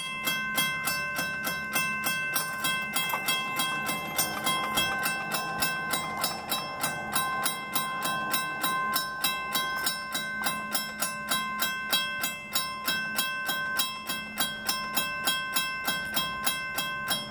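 Railroad grade crossing warning bell ringing steadily at a little over two strokes a second, signalling an approaching train while the crossing lights flash and the gates come down.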